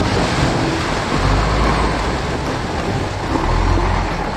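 Lifted Land Rover Discovery 4x4 driving through a shallow river: the engine runs under load while water rushes and splashes around the wheels. The engine's low note swells about a second in and again near the end.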